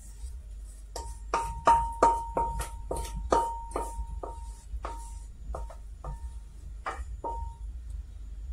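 Spoon knocking and scraping batter out of a metal mixing bowl. About seventeen knocks come two or three a second, slowing toward the end, and each makes the bowl ring with the same clear tone.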